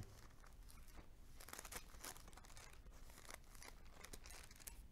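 Faint rustling and crinkling of thin Bible pages being leafed through, in scattered soft bursts.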